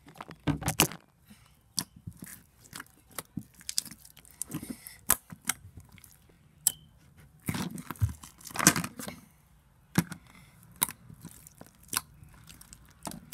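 Homemade blue glitter slime, a little overactivated, being squeezed and pulled apart by hand: irregular wet clicks and pops, with louder bouts of squishing and tearing about half a second in and again about two-thirds of the way through.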